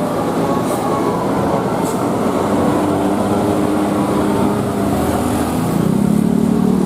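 A large bus passing close by, its engine and tyres making a loud steady noise, with the engine note growing stronger about two-thirds of the way through.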